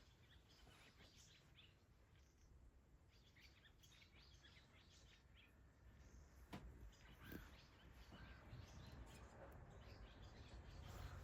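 Faint, scattered twittering of barn swallows: many short high chirps, with a couple of soft clicks about two-thirds of the way through.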